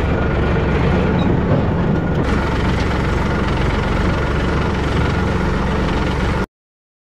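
Tractor's diesel engine running steadily as the tractor drives across a field, heard from the driver's seat; the sound cuts off suddenly about six and a half seconds in.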